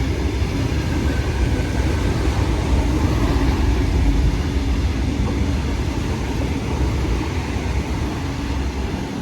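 Sydney Trains Tangara electric train running through the station at close range: a loud, steady rumble of wheels on rail with a steady hum over it, easing a little in the second half.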